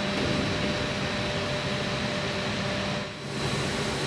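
Steady mechanical hum under an even hiss, dipping briefly about three seconds in.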